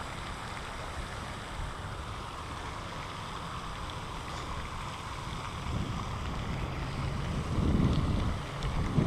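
Wind buffeting the microphone, a steady low rumble that swells into a stronger gust about eight seconds in.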